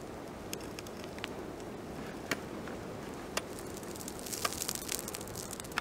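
Burning stack of straw big bales crackling and popping over the steady noise of the flames, with a flurry of crackles about four seconds in.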